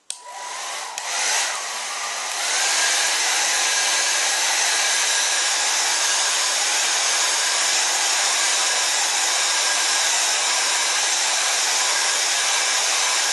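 Handheld hairdryer blowing steadily, drying freshly dabbed-on water-based leather colourant. It steps up in loudness about two and a half seconds in and winds down at the end.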